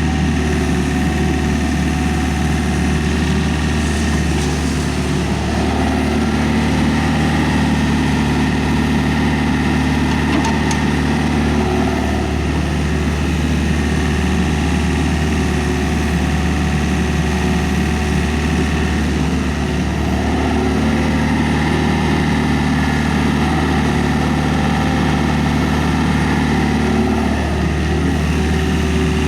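Diesel engine of a Hyundai R555-7 excavator running steadily. Twice, for about six seconds each, an extra lower-pitched hum joins the engine sound.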